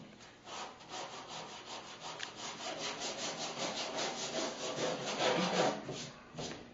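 Sandpaper on a long flexible sanding board rasping back and forth in quick, even strokes as a car hood's body-filler surface is block-sanded. It grows louder a little after the middle.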